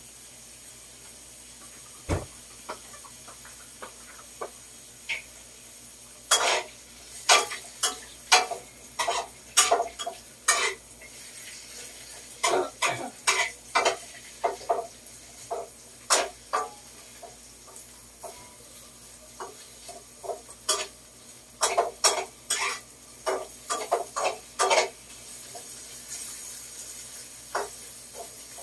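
A spatula scraping and knocking against a wok in runs of quick clatters while vegetables are stir-fried, over a steady faint sizzle.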